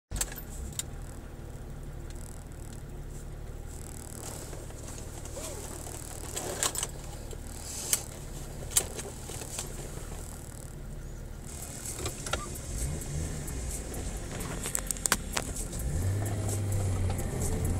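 Car engine idling, heard from inside the cabin, with scattered sharp clicks and rattles. Near the end the engine gets louder as the car pulls away.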